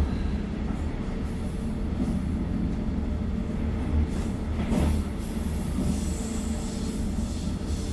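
A train running, probably a Hamburg U-Bahn or S-Bahn: a steady low rumble with a constant hum, and a brief louder noise about halfway through.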